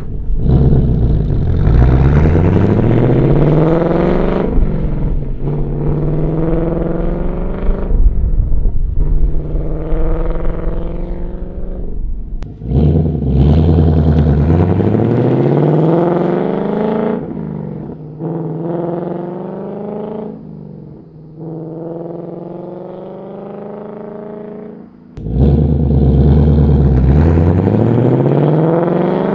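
Ford Mustang Dark Horse's 5.0 Coyote V8 exhaust under hard acceleration through the gears. Its pitch climbs over a few seconds and then drops back at each upshift. There are three loud pulls, the second and third starting abruptly.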